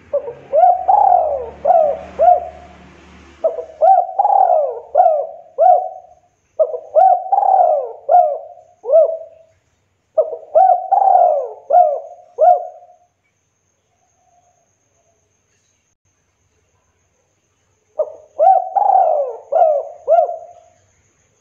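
Spotted dove cooing in repeated phrases, each a run of several short rising-and-falling coo notes. Four phrases follow close on one another, then a pause of about five seconds before a fifth near the end.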